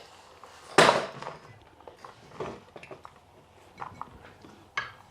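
A loud clunk about a second in, then lighter knocks and clicks: tricycle parts being handled as the rear axle assembly is worked onto the frame.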